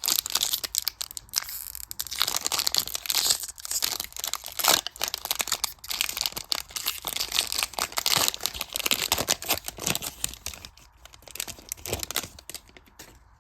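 Foil wrapper of a Panini Mosaic basketball card pack crinkling and tearing as it is opened by hand, with cards being handled; the crackling dies down over the last few seconds.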